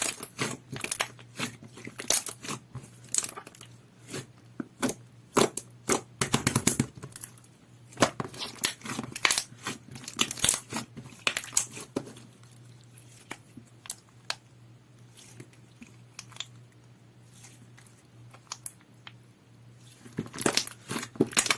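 Clear soothing-gel slime being squeezed and pressed by hand, giving sticky pops and crackles in dense clusters, sparser through the middle stretch.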